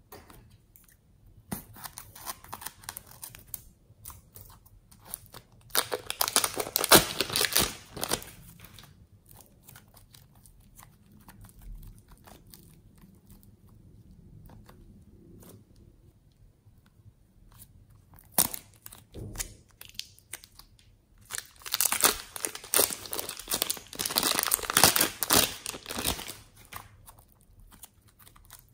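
A plastic piping bag full of fluffy slime being squeezed and handled: crinkling plastic and crackling, squishing slime. It comes in bursts, with two long loud spells, one about six seconds in and one past twenty seconds.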